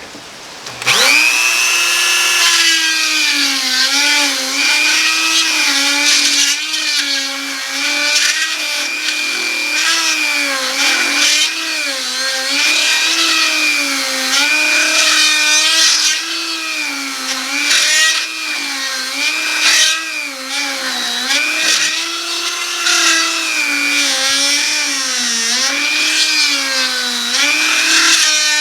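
Handheld power tool starting up about a second in and running at high speed as it cuts into heart pine. Its whine dips and recovers in pitch every second or two as the bit bites into the wood and is eased off.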